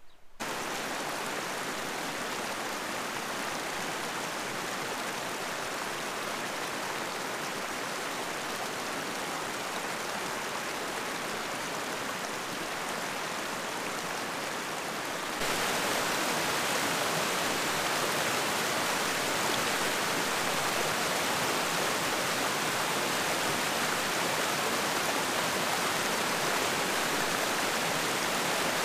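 Lillach creek water rushing steadily over small mossy limestone sinter (tufa) terraces in little cascades. It becomes suddenly louder about halfway through, as the cascade is heard closer.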